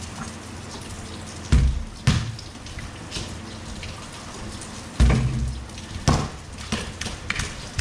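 Steady rain, with four heavy low thumps: two about a second and a half in, and two around five to six seconds in.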